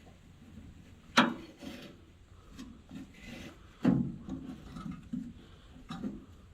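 Three sharp knocks with rubbing and scraping between them as hands work on a hay baler's twine guides and needles: one about a second in, a louder one near four seconds, and a lighter one near six seconds.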